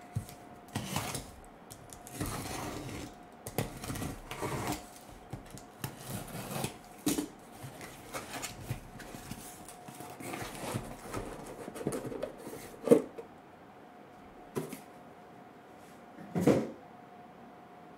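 Handling of cardboard card boxes on a tabletop mat: rustling, sliding and light knocks as shrink-wrapped hobby boxes are set down and stacked, with the sharpest knocks about 13 and 16 seconds in. A faint steady tone runs underneath.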